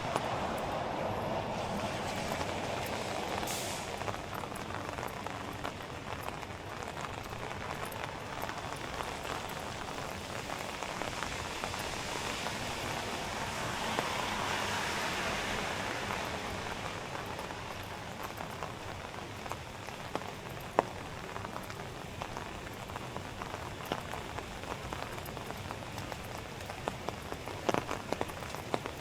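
Steady rain falling on a city street, an even hiss that swells louder at the start and again around the middle. A few sharp ticks come near the end.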